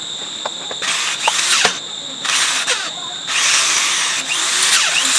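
Handheld electric power tool running with a steady high whine, worked against a metal part in three bursts of rasping, squealing noise, the last and longest starting a little past halfway.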